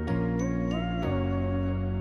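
Background music: sustained chords that change about a second in, with a slowly gliding melody and a few light high taps.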